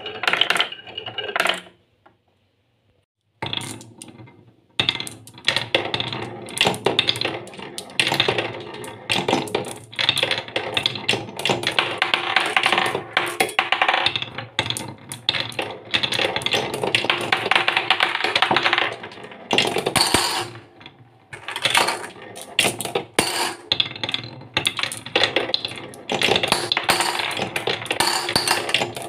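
Glass marbles rolling and clattering down a wooden marble run, rattling over ridged wooden tracks and circling in a wooden spiral bowl carved with concentric grooves, toward its centre hole. The clatter breaks off briefly about two seconds in, then runs on densely.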